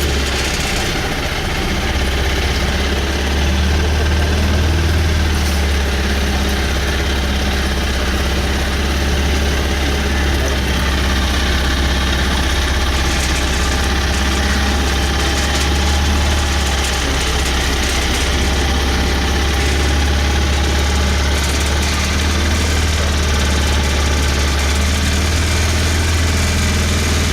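A boat's engine running steadily with a deep, even hum.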